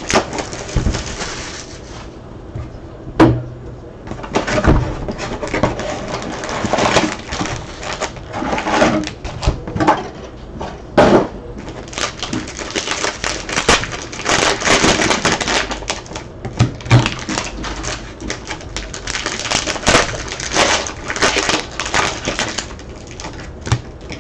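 Football trading-card packs being opened and handled: wrapper crinkling and card rustling with many small rapid clicks and a few sharper knocks.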